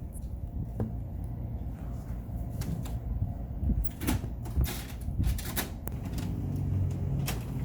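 Handling clatter: scattered short clicks and knocks, several in a quick cluster about two-thirds of the way through, over a low steady hum.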